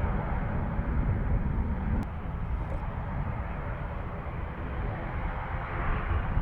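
Aircraft engine noise: a steady rumble with faint engine tones, from an airliner landing near the runway. A single click about two seconds in, after which it is slightly quieter.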